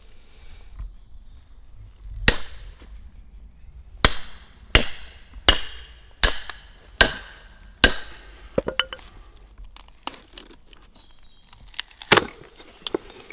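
Mallet striking the back of a froe, driving it down through a log to split off a wooden roof shingle: about eight sharp knocks, each with a brief ring from the steel blade. The first comes about two seconds in, then six follow in a steady run less than a second apart. Lighter clicks come after them, and one last knock falls near the end.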